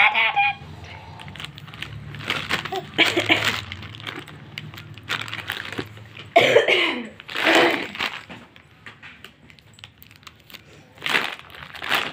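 Plastic snack packets and a chocolate wrapper crinkling in short bursts as they are handled, with a baby's brief vocal sound a little after halfway.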